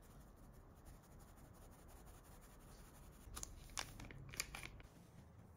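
Near silence: room tone, broken in the second half by a brief run of four or five light clicks and rustles.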